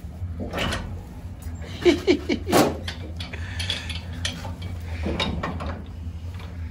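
Steel pipe wrenches clicking and grating on threaded pipe fittings as a nipple and union are worked loose, with a cluster of louder metallic clanks about two seconds in. A steady low hum runs underneath.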